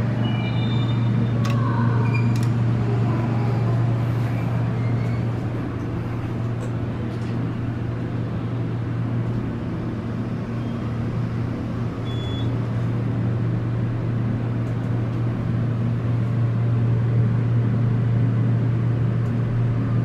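Hydraulic elevator running upward, its pump motor giving a steady, even low hum, with a few short high tones in the first couple of seconds.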